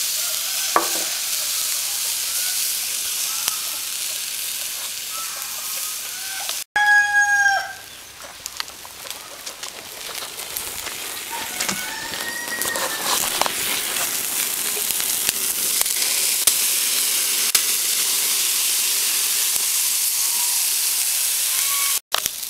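Picanha fat sizzling as it drips onto the charcoal, a steady hiss. A rooster crows once, loud and brief, about seven seconds in, and fainter fowl calls follow a few seconds later.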